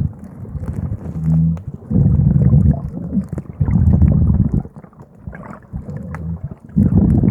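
Muffled water sloshing and bubbling in irregular low surges, with a short low hum about a second in.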